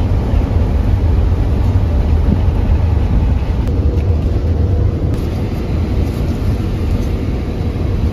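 Steady low rumble of road and engine noise inside a van's cabin while it drives at highway speed.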